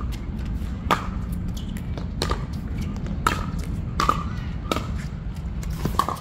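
A pickleball rally: the plastic ball popping off paddles and bouncing on the hard court, six sharp pops about once a second over a steady low background hum.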